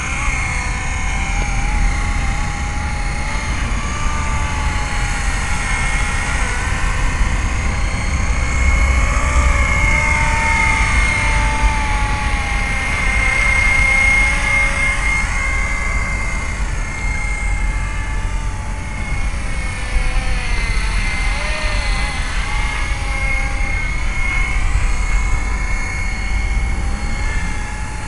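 Fixed-pitch mini RC helicopter in flight: a steady high motor-and-rotor whine whose pitch wavers up and down as it flies nearer and farther, over a low rumble.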